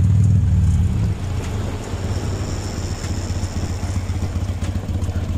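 Harley-Davidson Sportster 883's air-cooled V-twin engine, running after two years laid up. It runs steadily and loudly, then drops back to idle about a second in.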